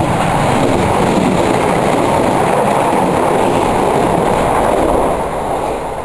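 Southern electric multiple-unit train passing close by on the near line, a loud rush of wheel-on-rail noise with some clickety-clack. The noise holds steady, then eases off about five seconds in as the train clears.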